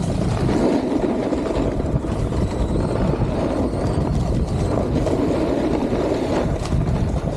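Steady rushing noise of a snowboard run: the board sliding over snow, with wind buffeting the POV camera's microphone.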